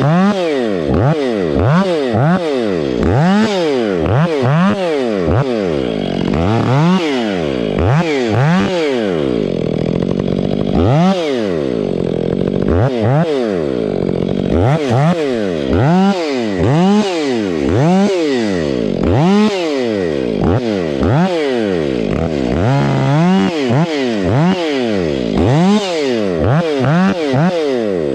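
Stihl MS 500i fuel-injected two-stroke chainsaw, already warmed up, revved up and down over and over, roughly once a second, with a brief steadier stretch partway through.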